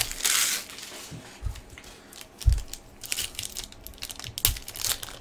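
A foil trading-card pack being opened and cards handled by hand: the wrapper crinkles and the cards rustle in short bursts, with a few soft thumps on the table.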